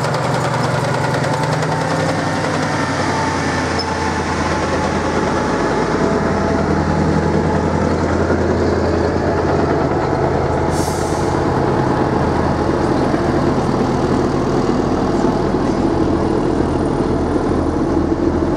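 Heavy military vehicles driving slowly past, with a steady, loud engine hum. A short hiss comes about eleven seconds in.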